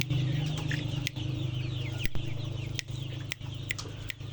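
A crowd of young chickens peeping continuously in short, falling chirps. Sharp clicks sound about seven times, over a steady low hum.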